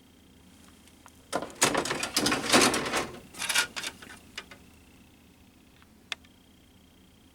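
Plastic crackling and rattling as styrene model-kit sprues are handled, for about three seconds, then a single sharp click near the end.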